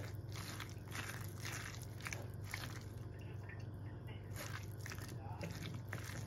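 A hand squeezing and mixing sliced raw onion, spinach and potato into a thick gram-flour (besan) batter in a small bowl: wet squelching and crunching in irregular strokes, more frequent in the first few seconds, over a steady low hum.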